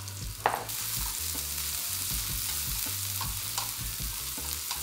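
Sliced lemongrass, chili, shallot, garlic and ginger sizzling in hot cooking oil in a steel wok, being stirred with wooden chopsticks, with light taps against the pan. A sharp knock comes about half a second in, after which the sizzle grows louder.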